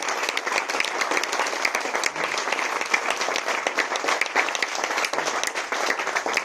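Audience applauding: many hands clapping steadily at the end of a talk.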